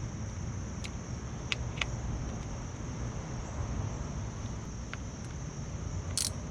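A few short, sharp metallic clicks of tools and fasteners as a motorcycle exhaust is refitted, the loudest near the end. A steady low rumble and a constant high whine run underneath.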